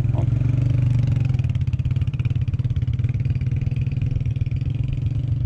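Motorcycle engine running steadily as the bike pulls away, with a fast, even firing beat.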